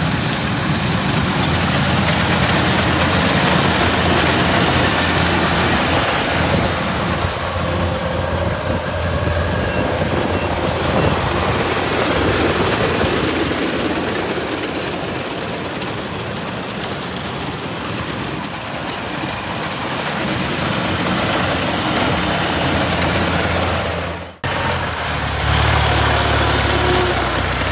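Kubota DC-105X rice combine harvester running steadily under load as it cuts and threshes rice. Near the end the sound breaks off briefly and gives way to an engine idling with a steadier low hum.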